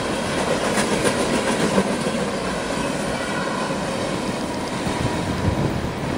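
Freight train cars rolling past, their wheels clacking rhythmically over the rail joints, with steady rumble and rail noise as the last cars go by.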